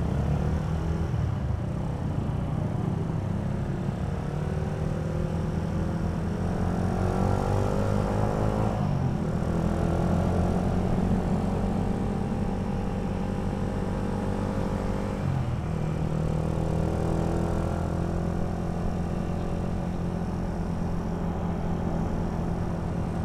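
Suzuki motorcycle engine pulling away and accelerating. Its pitch climbs with the revs and drops sharply at two upshifts, then it runs steadily at cruising speed.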